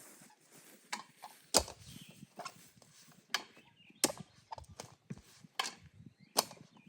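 Hand-digging a post hole: a digging tool striking into the ground about eight times at an uneven pace, the loudest strike about a second and a half in.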